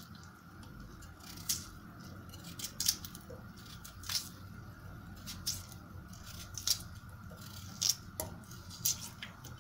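Knife cutting into a raw potato and snapping off chunks that drop into the pan: sharp clicks, roughly one a second.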